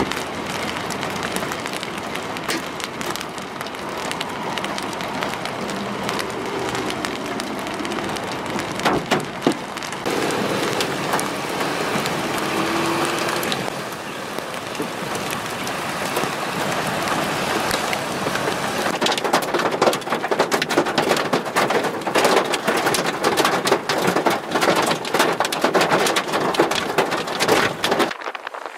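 Heavy rain and hail pelting wet pavement and parked cars, with hailstones up to ping-pong-ball size. The hiss of the downpour is broken by many sharp ticks and clacks of stones striking, which grow denser in the second half.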